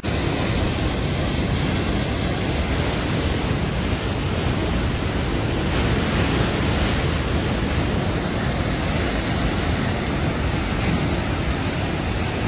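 Swollen river in flood pouring over a weir and churning downstream: a steady, dense rush of water.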